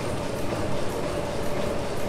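1904 Sulzer tandem-compound steam engine and its flywheel generator running steadily: continuous mechanical noise of the working engine, with a faint steady hum.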